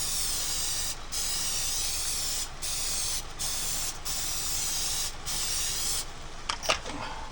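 Butter-flavor cooking spray being sprayed over noodles in a pan: a run of long hissing sprays with brief breaks, about six in all, stopping about six seconds in, followed by a few light clicks.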